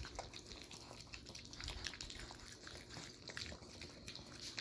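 Faint wet lapping and smacking of three puppies eating soft, mushy puppy chow from a bowl, heard as a run of small irregular clicks.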